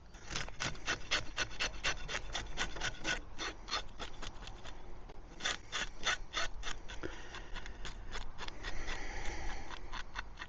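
Scales being scraped off a whiting in quick, rhythmic strokes, about four a second, with a short pause partway through.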